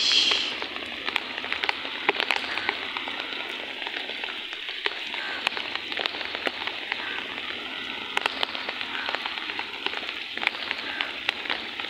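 Heavy rain falling on muddy ground and puddles: a steady hiss full of close drop taps, with a brief louder rush at the very start.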